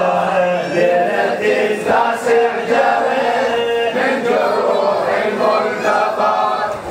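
Male voices chanting an Arabic mourning lament together, in a sung, drawn-out melody.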